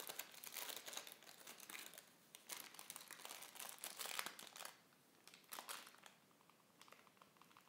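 Faint crinkling and rustling of a paper bag of ground cinnamon being handled and shaken out, in scattered rustles that thin out and fade over the last couple of seconds.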